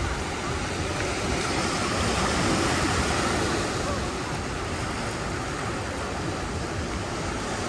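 Ocean surf washing onto the beach: a steady rush that swells slightly two to three seconds in.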